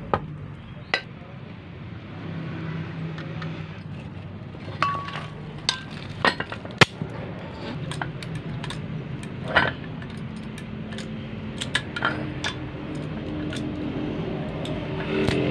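Metal tools clinking and knocking against a car alternator's metal housing as it is handled with locking pliers and a screwdriver: scattered sharp clicks, the loudest about seven seconds in, one with a brief ring. A steady low hum runs underneath.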